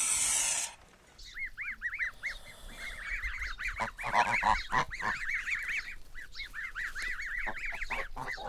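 A short goose hiss, then a brood of goslings peeping: many quick, high, overlapping chirps that run on continuously, with a few louder, lower sounds about four to five seconds in.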